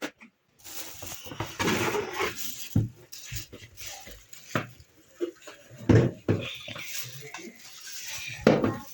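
Clattering and knocking as a blender jar and its parts are handled, with the sharpest knocks about six seconds in and near the end.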